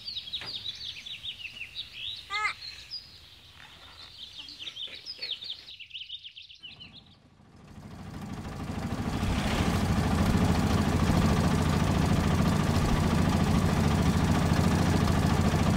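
Small birds chirping in quick, short calls. After a brief lull, an auto-rickshaw's engine grows louder over a couple of seconds as it approaches, then runs steadily.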